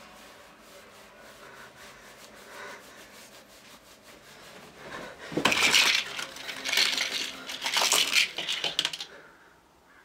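Pill bottles and medicine boxes being rummaged through, small hard containers rattling and clattering in a run of loud bursts from about five seconds in, stopping shortly before the end.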